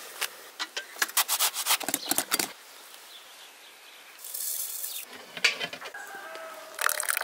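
A quick run of clicks and scrapes, like utensils on pans and plates, in the first couple of seconds, then a brief hiss, then chickens clucking in short pitched calls in the last couple of seconds.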